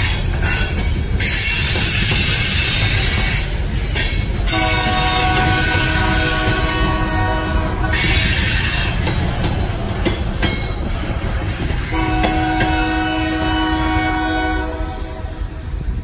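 Freight cars rolling past with a steady low wheel rumble and thin high wheel squeal, while a diesel locomotive's air horn sounds two long blasts, one about four seconds in and another near the twelve-second mark.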